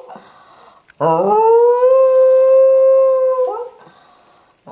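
Jack Russell terrier howling: one long howl about a second in that slides up in pitch and then holds steady for a couple of seconds before breaking off.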